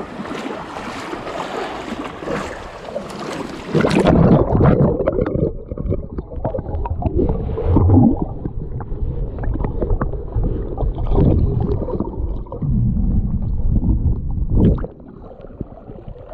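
Shallow surf washing and fizzing at the waterline. About four seconds in, the microphone goes under and the sound turns muffled: loud low underwater sloshing and gurgling with scattered knocks, dropping quieter near the end.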